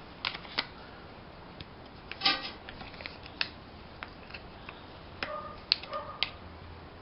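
Scattered sharp clicks and light handling noises from a folding pocket knife and its nylon belt sheath being worked, with a few brief squeaky tones about five to six seconds in.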